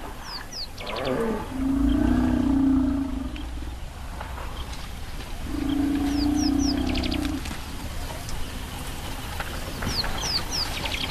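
Elephants giving deep, steady rumbling calls, two long calls of about two seconds each. Short high bird chirps sound in small groups near the start, in the middle and near the end.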